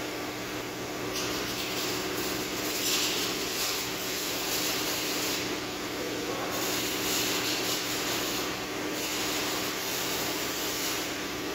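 A steady mechanical hum holding a few low tones, with several stretches of hissy rustling as clothing rubs against the microphone.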